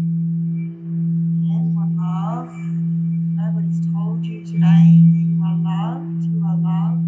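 Singing bowl sung by a mallet circling its rim: a steady low hum with faint higher overtones that dips briefly about every two seconds and swells louder about five seconds in.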